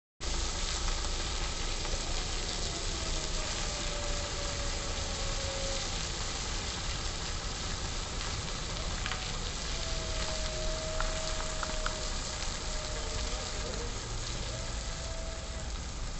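Heavy lorry slowly hauling a low-loader trailer, heard as a steady rushing noise with three faint, drawn-out squeals and a few light clicks near the middle.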